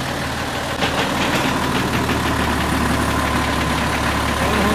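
Diesel crane truck's engine running steadily under load as its hydraulic crane strains at a load too heavy to lift. A steady high whine comes in about a second in.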